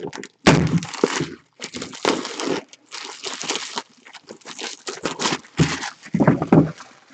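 Plastic shrink wrap being torn and crumpled off a sealed trading-card box, in irregular crackling bursts with some thumps from handling the box.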